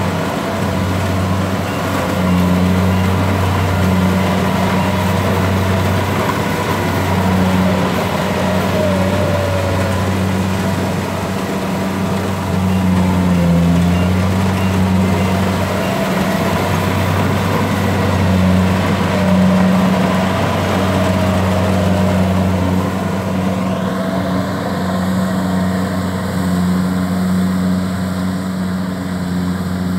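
Small rice combine harvester running steadily as it cuts and threshes, a continuous low engine drone with a strong low hum.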